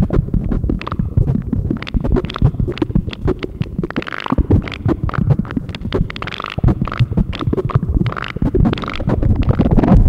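Modular synthesizer output from a patch through a Ciat-Lombarde-style Kosmo module: a dense, irregular low rumble full of crackling clicks, with scattered short higher blips. It grows louder and fuller near the end as the patch is changed.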